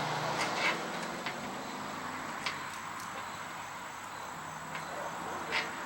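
A few light clicks and taps from a skid shoe and its carriage bolts being fitted back into the slots on a snow blower's housing, over a steady outdoor background hum.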